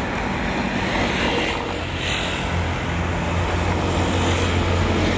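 Road traffic passing on the street beside the railway line: a steady wash of vehicle noise, with one vehicle's low engine hum growing louder in the second half.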